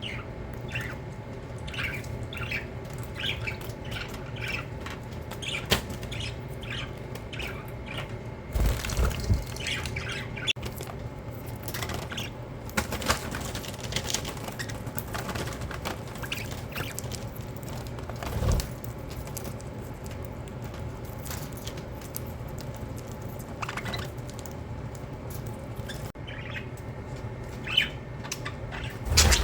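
Budgerigars chirping and chattering in short, rapid calls, with a few louder wing flutters.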